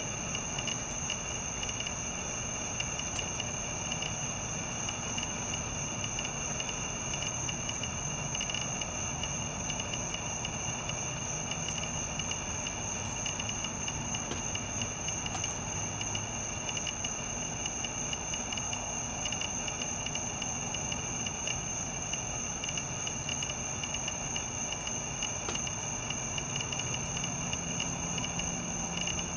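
Insects chirring steadily: a constant high-pitched ringing with a lower second tone over a low background hiss.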